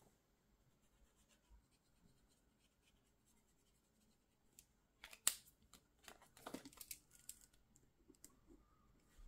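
Mostly near silence, then a sharp click about five seconds in followed by faint scratching and rustling of a pen on paper as boxes on a printed savings tracker are coloured in.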